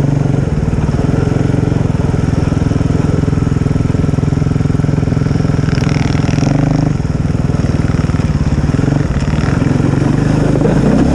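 Dirt-bike engine of a snowbike running under way. It holds a steady pitch, drops off about seven seconds in, and climbs again near the end.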